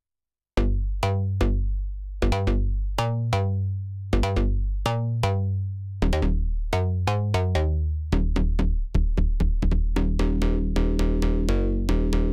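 Arturia MiniFreak synthesizer playing a preset: plucky bass notes with sharp attacks that die away quickly, in a rhythmic pattern that starts after a moment's silence and turns into a faster run of repeated notes about eight seconds in.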